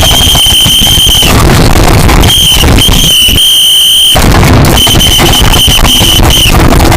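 Shrill, piercing alarm tone sounding in repeated blasts of uneven length: one long blast, then several shorter ones, over a loud harsh din.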